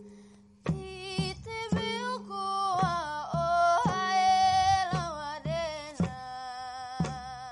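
A single voice sings a slow, wavering melody over a steady low drone, with sharp percussion strikes landing roughly once or twice a second.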